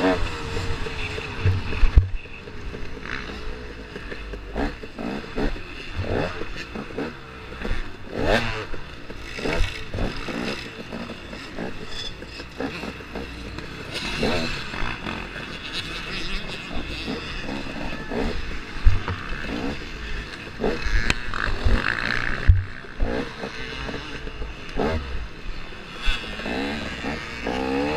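A KTM 250 XC-W's two-stroke engine runs at low speed for the first two seconds, then drops away. After that come many knocks and scraping rubs of a glove handling the camera right at the microphone. Near the end the engine note is heard again.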